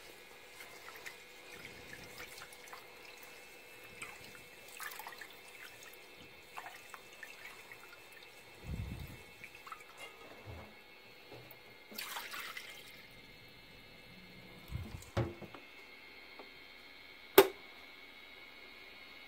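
Hand swishing and rubbing rice in water in a rice cooker's inner pot, with faint sloshing and dripping. A single sharp knock sounds near the end.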